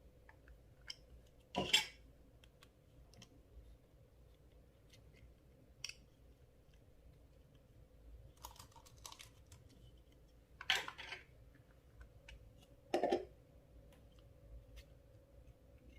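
Clear slime being worked by hand: scattered small sticky clicks and crackles, with three louder short squelches spread through it.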